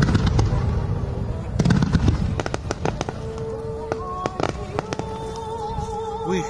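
Aerial fireworks shells bursting in rapid volleys of bangs and crackles, thickest in the first couple of seconds, then thinning to scattered pops, with music playing in the background.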